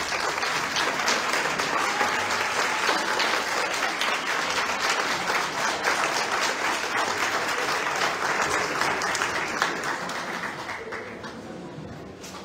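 Audience applauding after an orchestral piece ends, a dense patter of clapping that dies away over the last couple of seconds.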